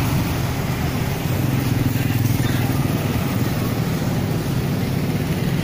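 Street traffic with motorcycle engines running as they pass close by, a steady low hum over road noise.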